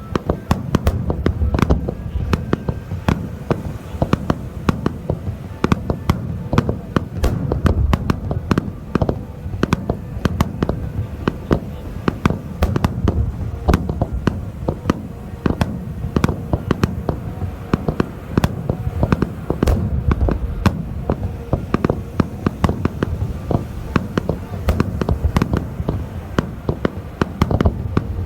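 A fireworks display going off: a dense, continuous crackle of many sharp pops, over deep booms that swell and fade.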